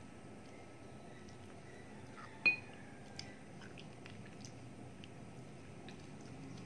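Quiet eating sounds: faint clicks and chewing as a cooked chicken foot is bitten and gnawed. There is one sharp clink with a brief ring about two and a half seconds in, and a smaller click just after.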